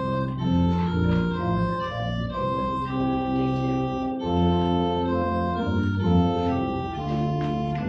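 Church organ playing a hymn in full held chords that change every half second or so.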